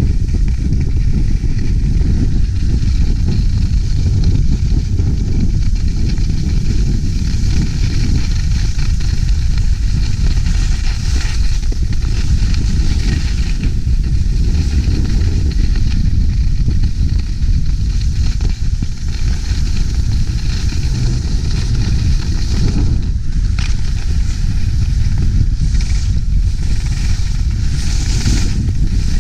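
Steady wind rumble buffeting an action camera's microphone while skiing, with the hiss of skis sliding over snow, changing a little near the end.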